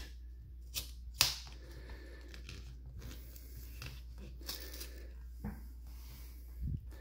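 Kitchen scissors snipping into a tape-wrapped cardboard mailer: a few sharp clicks of the blades, the loudest about a second in, then scratchy cutting and rustling of the cardboard and tape.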